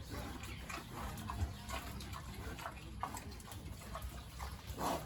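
Farm animals calling in many short, irregular sounds over a low steady background.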